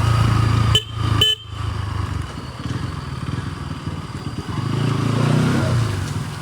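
Bajaj Pulsar NS200's single-cylinder engine running under way, with road and wind noise. The sound cuts out sharply twice about a second in, and the engine note swells again near the end.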